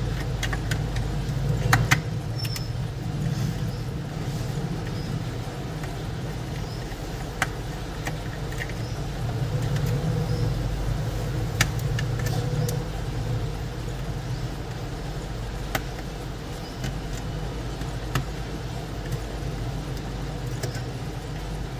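Occasional small sharp clicks of a screwdriver working the tiny screws out of a mini Bluetooth speaker's plastic case, over a steady low background rumble.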